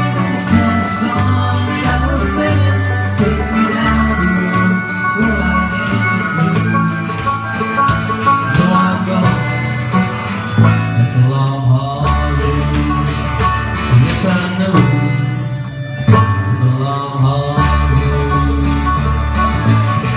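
Live country band playing in a bluegrass style: banjo and guitars over bass and a drum kit, with a fiddle, and some singing.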